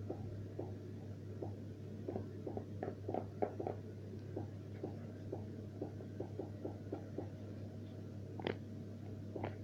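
Irregular soft clicks or taps, a few a second, with a sharper one near the end, over a steady low hum.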